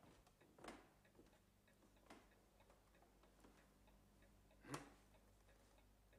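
Near silence: a clock ticking faintly in a quiet room, with a few soft knocks. The loudest knock comes about three-quarters of the way through.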